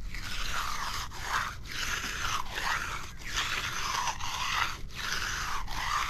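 Hand concrete edger scraping along the edge of a fresh, wet concrete slab in repeated back-and-forth strokes, about two a second.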